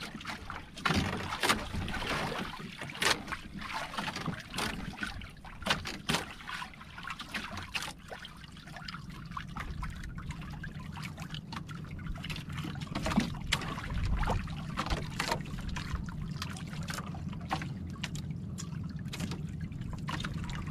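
Water lapping and trickling against the hull of a small outrigger boat. Scattered sharp clicks and knocks are thickest in the first half, and a steady low rumble takes over from about eight seconds in.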